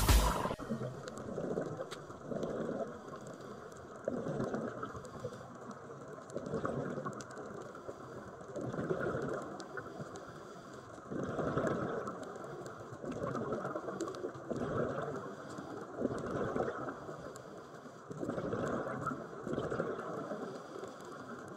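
Scuba divers' exhaled bubbles heard underwater through a phone housing: a bubbling rush that swells and fades in bursts every couple of seconds.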